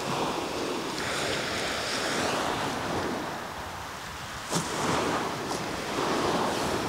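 Surf breaking and washing back on a shingle beach, rising and fading in slow swells. A sharp click about four and a half seconds in.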